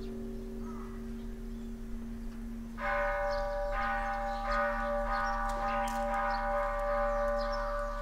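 A deep bell hums on throughout. About three seconds in, a second bell with several higher overtones is struck and rings on.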